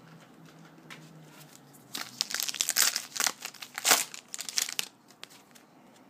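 2012 Topps Magic card pack wrapper crinkling and tearing as it is opened. The crackling starts about two seconds in, runs for about three seconds, and is loudest near the end.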